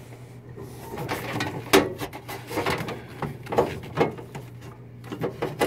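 A wire being handled and pulled through a bundle of cables and plastic loom: irregular rustling, scraping and clicking, over a steady low hum.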